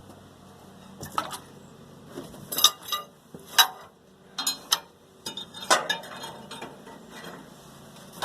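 Metal parts clanking and clinking, a string of sharp hits with brief ringing, as a hydraulic cylinder's studs are worked into line on a homemade baler frame.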